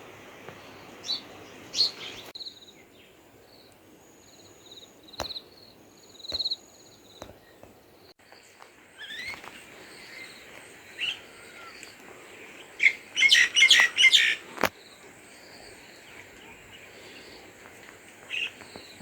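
Small birds chirping in short high notes, with a burst of loud, rapid calls about two-thirds of the way through. A couple of sharp clicks are also heard.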